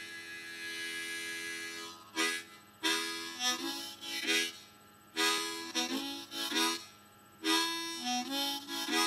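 Key-of-A harmonica playing a chugga-train rhythm: a chord held for about two seconds, then short chords in quick rhythmic groups with brief pauses between them.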